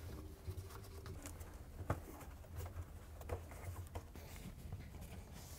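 Faint rubbing and scattered soft taps from a rubber washer bellow tub seal being pressed by gloved hands onto the rim of the drum, the clearest tap about two seconds in, over a low steady hum.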